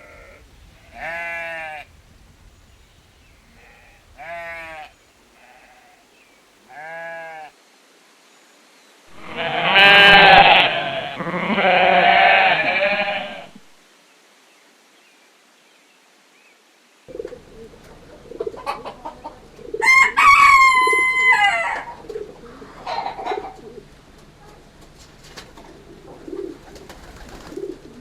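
Three short bleats about three seconds apart, then a loud burst of overlapping bleating calls lasting about four seconds. After a pause, a rooster crows about twenty seconds in, over a steady clucking of hens, and calls again near the end.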